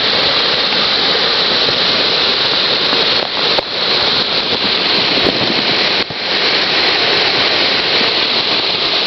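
A swollen creek in flood after heavy rain, its fast water rushing steadily and loudly. The creek is normally a trickle or dry.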